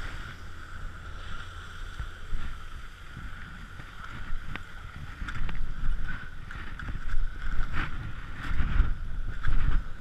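Skis sliding and scraping over packed snow, with wind rumbling on the microphone, and a few short clicks. It grows louder from about halfway through as the skier picks up speed.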